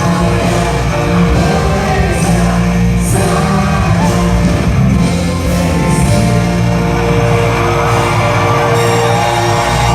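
Live rock band playing loudly with a singer, in concert, with some shouts over the music.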